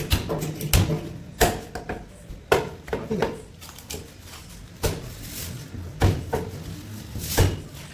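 Knife or cleaver chopping through a barracuda on a cutting block: a series of sharp knocks at uneven intervals, with quieter scraping and handling of the fish between strikes.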